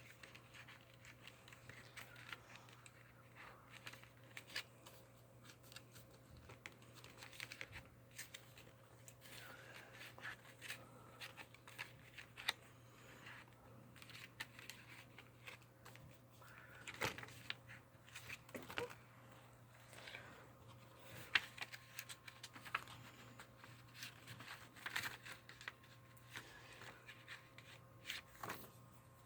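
Faint rustling and scattered light clicks of a Blu-ray case and its paper movie guide being handled, over a low steady hum.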